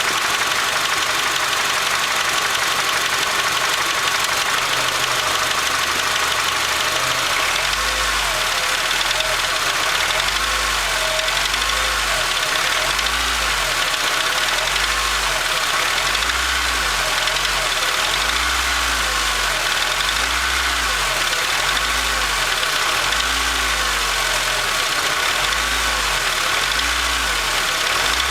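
Acura RSX's 2.0-litre four-cylinder engine idling, then from about 8 seconds in blipped over and over, rising and falling about once every one and a half seconds. A distinct clanking comes in as it revs between about 1000 and 1500 rpm, which the owner suspects is a rod bearing knock.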